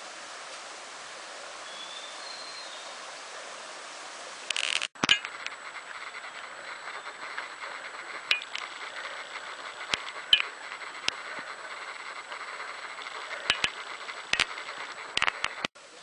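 Steady rush of a mountain stream flowing over rocks. About five seconds in the sound breaks off sharply, and a quieter hiss follows with scattered clicks and knocks from walking along a dirt forest trail.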